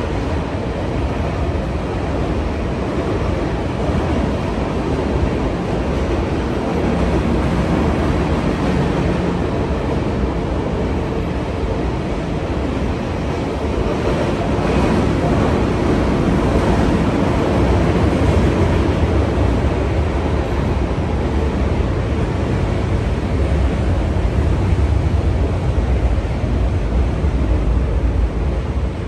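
Steady rumble of a train passing close by, heaviest low down, with some wind noise on the microphone.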